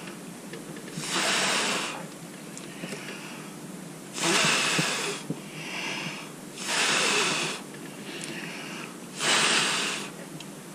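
Four long puffs of breath blown from the mouth across wet acrylic pour paint on a tilted canvas, each about a second long and a couple of seconds apart, pushing the white paint out to form a bloom.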